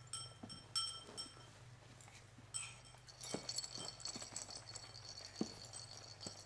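Faint metallic clinking and jingling, as of a small dog's collar tags knocking against its food bowl while it eats, growing into a denser run of jingling about three seconds in, with a few soft knocks.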